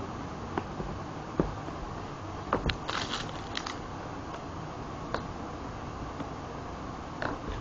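A shrink-wrapped iPad mini box being handled and turned over on a table: scattered taps and knocks, with a short crinkle of the plastic wrap about three seconds in, over steady background noise.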